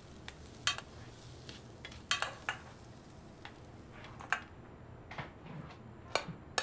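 Cutlery clinking and scraping on plates at a meal, with scattered irregular sharp clinks.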